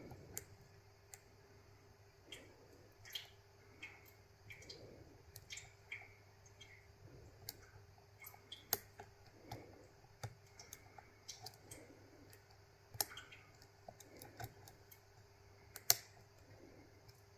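Faint, irregular metallic clicks and ticks of a lock pick working the pins of a GOAL D9, a Japanese pin-tumbler lock with three rows of pins, held under tension while being picked. A few sharper clicks stand out about 9, 13 and 16 seconds in.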